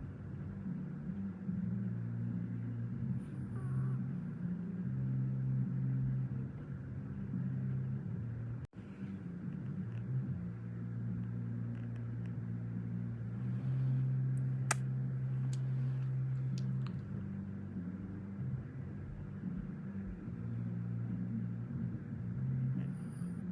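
A puppy snoring: a low drone that comes in stretches of a few seconds each, with breaks between them.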